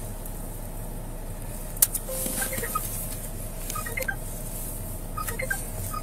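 Steady hum inside a patrol car's cabin, with one sharp click about two seconds in and a few faint short beeps.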